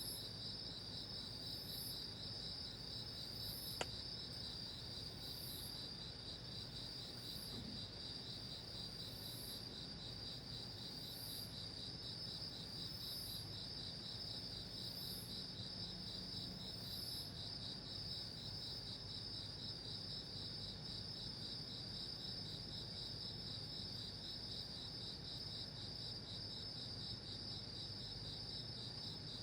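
Crickets chirring in the night: a continuous high trill, with a second, even higher chirp repeating every second or two through the first half. A single faint click comes about four seconds in.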